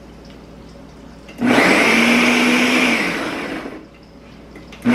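Large countertop blender chopping raw onions, garlic and tomatoes into a purée, run in pulses: it starts about a second and a half in, runs at a steady pitch for about two seconds, winds down with falling pitch, and starts again at the very end.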